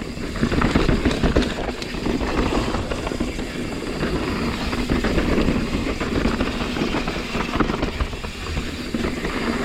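Mountain bike riding fast down a dirt trail: steady rumble of tyres over the ground, with many small knocks and rattles from bumps, and wind noise on the microphone.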